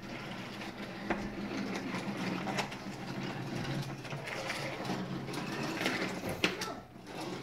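Small motorized toy train running steadily with gear noise, with a few sharp clicks.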